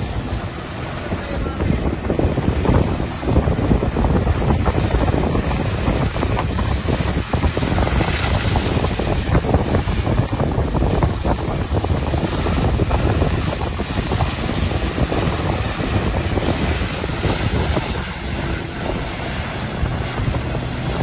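Jet ski engine running under load to drive a flyboard, with the rush of the water jets spraying from the rider's boots, and heavy wind buffeting on the microphone.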